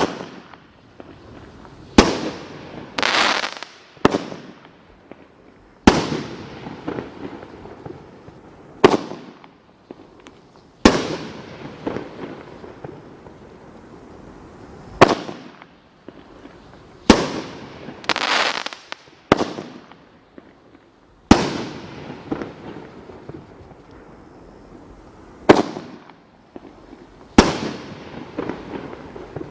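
World Class Fireworks 'Feel the Heat' firework going off: a series of sharp bangs about every two seconds, several followed by a crackling, hissing tail.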